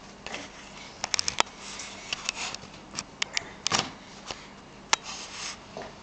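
A full plastic water jerrycan, about 30 kg, being shoved in short pushes across a ceramic tile floor. It makes a string of sharp clicks and knocks with brief scrapes.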